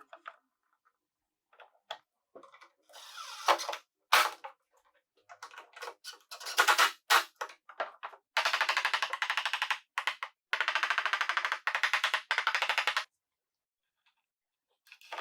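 Power screwdriver driving screws into wood. A few short bursts and knocks come first, then two long runs of fast, even rattling, the second about two and a half seconds long.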